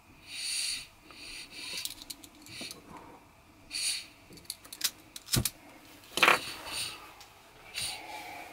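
Short hisses and a run of sharp clicks as a gas lighter is worked to light a small ceramic burner running on a refilled camping gas canister, with a louder hissing burst about six seconds in.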